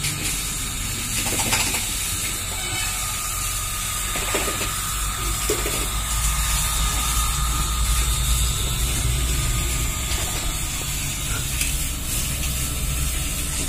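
Small electric water pump running: a steady motor hum with a hiss, the low rumble growing stronger from about five seconds in.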